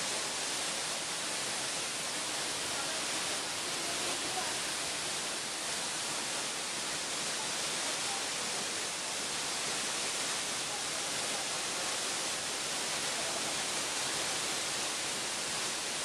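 Waterfall pouring down a narrow rock gorge: a steady, bright rushing hiss of falling water.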